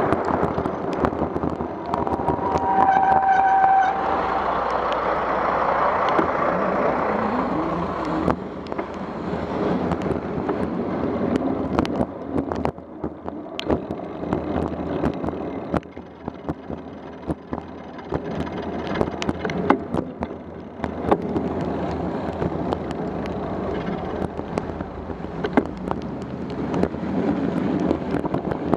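Wet-road traffic noise heard from a bicycle in the rain: a steady hiss of tyres on wet pavement and running car engines, with many sharp ticks throughout. A short steady tone sounds about two to four seconds in, and the noise drops somewhat in the middle before picking up again near the end.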